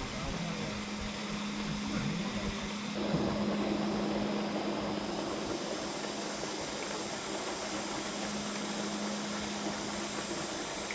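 A motor running steadily with a constant low hum over a hiss of outdoor noise, a little louder from about three seconds in.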